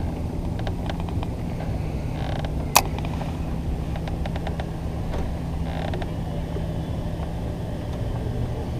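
Electric bow-mount trolling motor running with a steady low hum, with a few light ticks and one sharp click about three seconds in.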